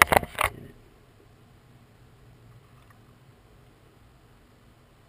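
Bradley Kimura balisong's handles clacking several times in a quick burst of under a second as it is flipped, testing the freshly tightened pivot screw.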